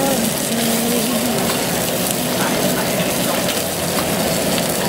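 Salmon fillet frying in a pan of hot oil on a gas burner: a steady sizzle.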